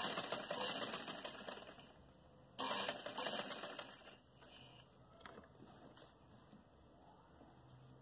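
Sewing machine stitching cloth in two quick runs, about two seconds and then about a second and a half, with a short pause between. After that it stops, leaving only faint handling noise and a small click.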